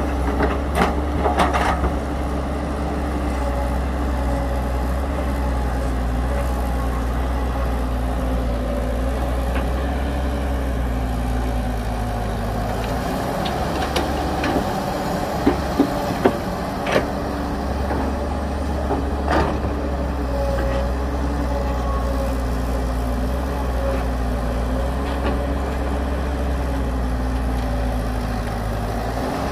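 Heavy diesel engine of earthmoving machinery running steadily with a deep rumble. The rumble drops for a few seconds about halfway through, while several sharp knocks and clanks sound.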